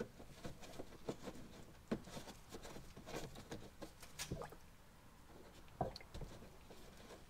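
Engine oil from a Shelby GT350R draining out of the oil pan into a nearly full drain pan, heard as faint, irregular pattering and dripping.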